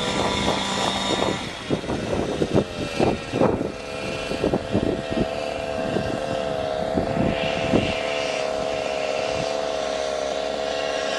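Radio-controlled model helicopter running with a steady whine. A string of sharp knocks and clatters sounds over it in the first five seconds or so.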